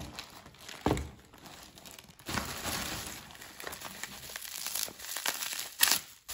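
Bubble wrap and thin plastic packaging crinkling and rustling as they are handled and unwrapped. It gets busier partway through, with a sharp crackle about a second in and a louder one near the end.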